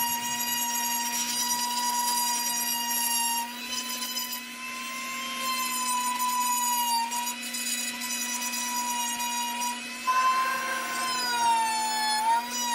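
Dremel rotary tool on a flexible shaft, spinning a teardrop-shaped bit that grinds wood to clean out carved grooves. It gives a steady high whine that wavers slightly in pitch a few times as the bit works the wood.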